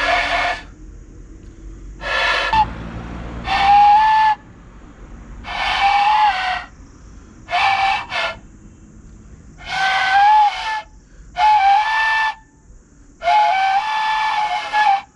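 Bamboo bansuri flute blown by a beginner: about eight separate breathy single notes, each a second or so long with pauses between, mostly around the same pitch. The player is learning to find the sweet spot that gives a clear tone.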